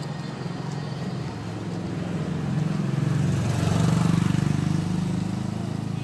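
A motor vehicle's engine running close by with a low, pulsing hum. It grows louder to a peak about four seconds in, then eases off.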